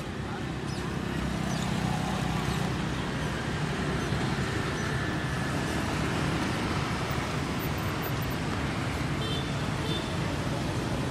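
Street traffic of motorbikes and scooters passing, a steady mix of small engines that gets louder about a second in.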